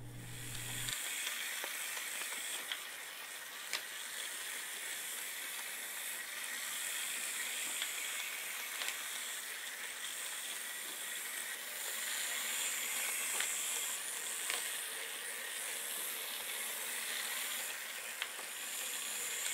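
Small DC gear motors of two line-following robot kit cars whirring steadily as they drive, with a few faint clicks.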